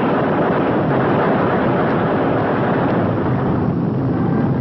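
Piston aircraft engines running in a steady, dense drone on an old film soundtrack with a muffled top end.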